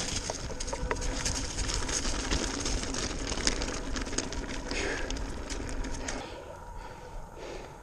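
Mountain bike tyres rolling over gravel and dry fallen leaves, a steady crunching rush full of small crackles and rattles of the bike. The noise drops off about six seconds in as the bike eases up.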